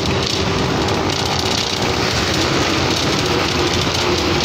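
Steady engine and road noise of a moving vehicle, heard while riding in it.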